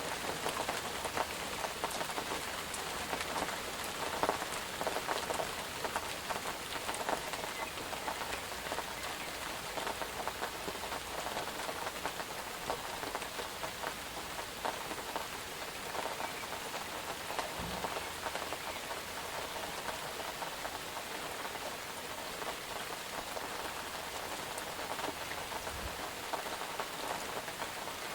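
Steady rain falling on a surface, a dense even hiss with many individual drops ticking.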